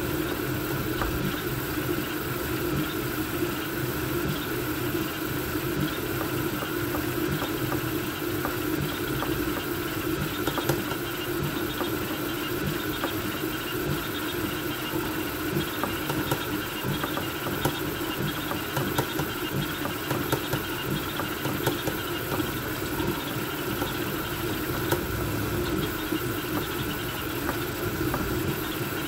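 Voron V2.4 3D printer running a fast print: a steady fan noise with the stepper motors humming and small ticks as the toolhead moves.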